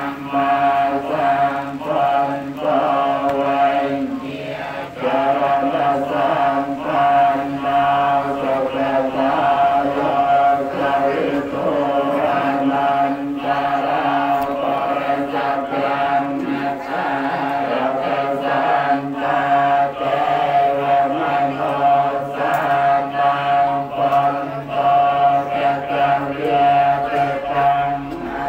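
Buddhist monks chanting Pali blessing verses together in a steady, droning unison with long held notes: the sot mon blessing chant of a Khmer wedding.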